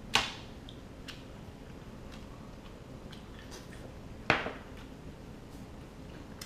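Table sounds while eating king crab: two sharp knocks, one just after the start and one about four seconds in, each ringing out briefly, with a few faint clicks of crab shell being picked between.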